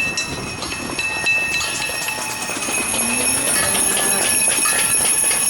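A din of noisemakers: many overlapping ringing and whistling tones at different pitches starting and stopping, with jingling and clicks.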